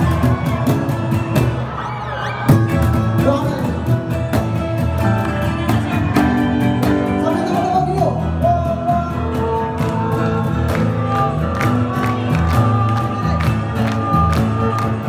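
Live keroncong-style folk band playing with a steady strummed rhythm: violin, ukuleles, acoustic guitar and bass guitar.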